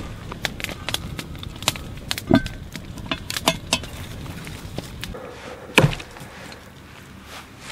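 A run of sharp knocks and clinks from a metal pot and lid being handled, then about six seconds in a single heavy chop: an axe cutting through meat laid on a log.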